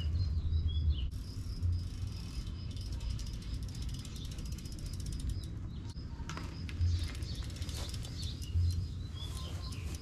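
A 1995 GT Force road bike's rear freewheel ticking rapidly as the bike coasts past.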